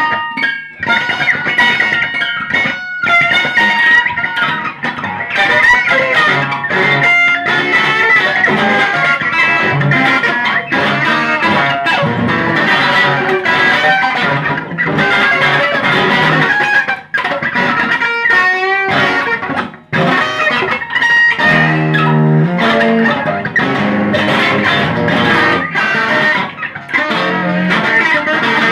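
Electric guitar played through an amplifier in free improvisation: fast, dense picked and strummed notes, with a couple of brief breaks.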